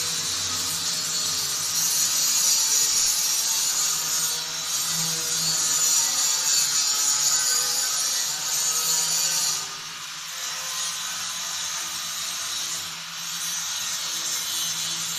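Handheld angle grinder grinding galvanized iron railing tube, a steady high hiss that throws sparks. It runs a little quieter from about ten seconds in.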